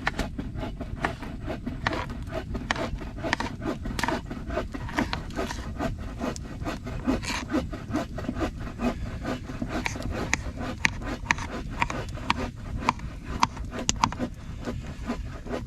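Knife chopping dill pickles on a cutting board: a run of quick, irregular taps.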